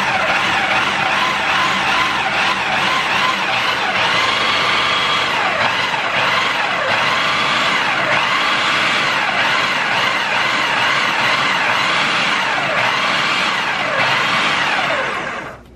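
Food processor motor and blade running steadily, cutting shortening into flour and salt, with a faint wavering whine over the noise; it stops shortly before the end.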